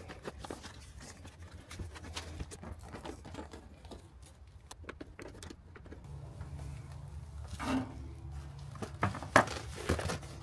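Small clicks, ticks and crinkles of a flexible duct being worked onto an inline exhaust fan and its metal hose clamp tightened with a flathead screwdriver. A low hum comes in partway through, and a sharper knock sounds near the end.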